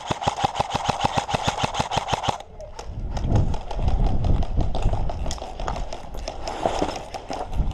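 Airsoft gun firing a long full-auto burst, a rapid, even clatter of shots that stops about two and a half seconds in. After it come irregular low thumps and rustling, like footsteps of someone moving on foot.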